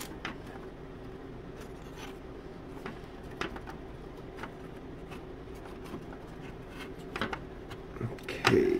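Light clicks, taps and rubbing of thin laser-cut wood parts being handled and pushed into place on a model boat's wooden frame.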